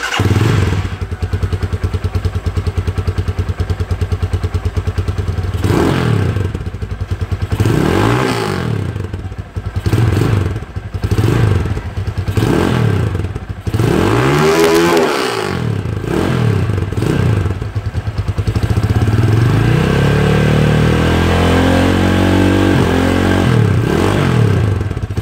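Rusi SS250 motorcycle engine through its stock exhaust, started from cold: it catches at once and idles, then is blipped about six times in quick succession, and near the end is held at a longer rev that rises and falls back to idle.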